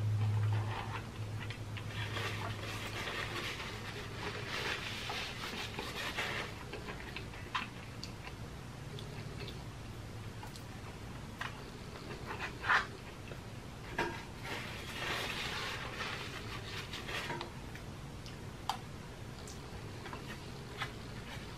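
Close-up chewing and mouth sounds of a person eating sauce-coated fried chicken, with a few sharp clicks of a metal utensil. A low hum is there at the start and fades out within the first seconds.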